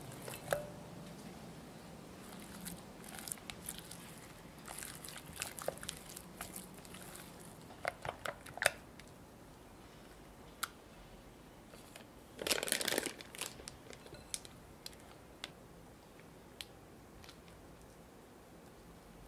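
Kitchen handling sounds: a spatula tapping and scraping in a glass bowl of custard, with a short burst of plastic crinkling about two-thirds of the way through as a plastic piping bag is handled and filled.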